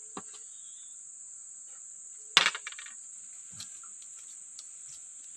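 Insects buzzing steadily and high-pitched in the forest, with one sharp clatter of eating utensils about two and a half seconds in, followed by a few lighter clicks.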